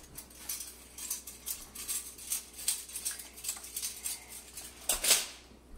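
Plastic squeeze bottle dripping and squirting agar-agar juice into a glass of cold oil: irregular small clicks and ticks, several a second, with a louder knock about five seconds in.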